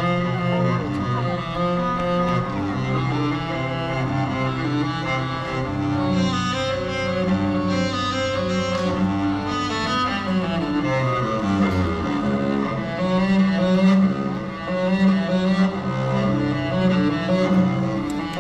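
String music with low bowed strings playing long held notes that step from one pitch to the next; it cuts off suddenly at the end.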